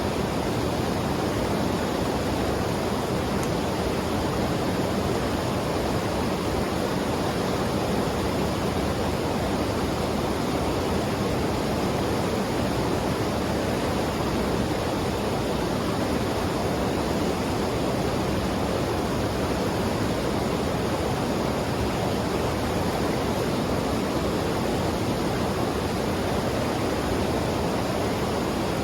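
Fast mountain river rushing over rocks: a steady, unbroken roar of water.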